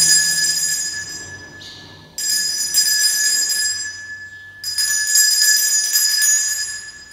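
Altar bells rung three times, once at the start, again about two seconds in and again about four and a half seconds in, each a bright jangle of high tones that fades away. They mark the elevation of the consecrated host at Mass.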